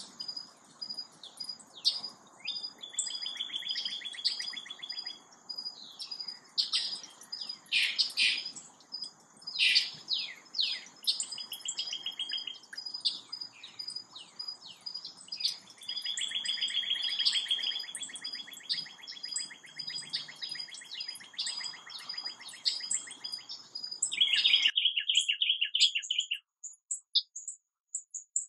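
Dawn chorus of several songbirds: overlapping chirps and repeated trills over a steady high-pitched tone. About 25 seconds in the background drops out abruptly, leaving one loud trill and then a few scattered chirps.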